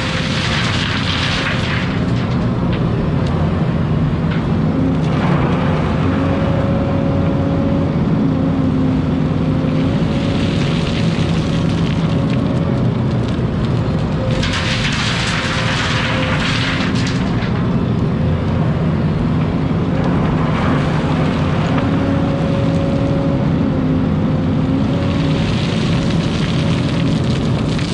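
Hidromek hydraulic excavator's diesel engine running steadily under load, with a faint whine coming and going as the arm works. About five loud rushing bursts of a second or more mark soil pouring from the bucket into the steel bed of a dump truck.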